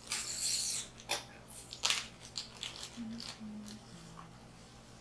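Slime being worked by hand: a crackly burst at the start, then scattered clicks and crunches.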